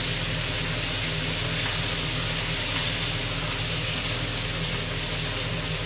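Sea bream sizzling on a hot ridged grill pan over a gas burner: a steady hiss, with a steady low hum underneath.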